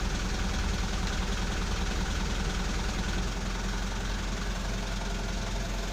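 Refrigerated truck's engine idling steadily, with its Topre cooling unit switched on and running.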